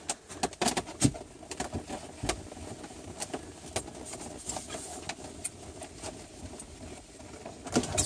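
Hand scrubbing the inside of a car window with a damp magic eraser pad, a string of irregular rubs, taps and small knocks against the glass, done to remove a stubborn haze.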